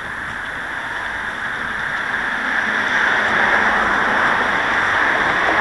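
Street traffic noise: a car on the road approaching, its steady tyre and engine hiss growing gradually louder.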